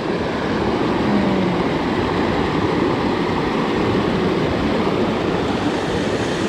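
Steady rush of a fast mountain creek tumbling over rocks in pocket water.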